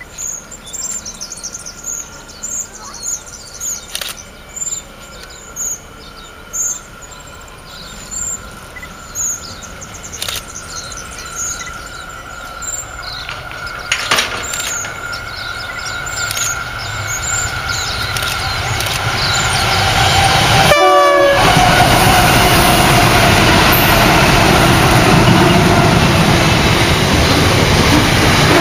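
Five Pacific National NR class diesel-electric locomotives (GE Cv40-9i) approaching, their engine sound swelling slowly from far off, then passing loudly about two-thirds of the way in, followed by container wagons rolling by with clickety-clack. Over the quieter first part, short high chirps repeat about once a second.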